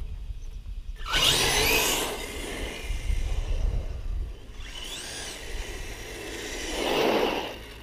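Electric RC monster truck with a 1717 brushless motor driving in bursts of throttle on asphalt: a rising motor whine about a second in, another whine that rises and falls around five seconds in, and a louder rush of drive and tyre noise near the end.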